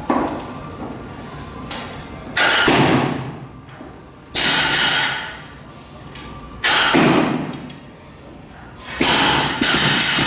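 Heavy thuds of barbell bumper plates hitting a lifting platform, about six in all, roughly every two seconds, each ringing on for about a second in a large hall.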